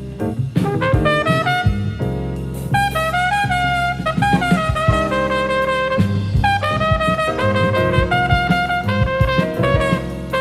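Live small-group jazz: a trumpet plays a line of short and held notes over a rhythm section, heard from a cassette tape recording of a radio broadcast.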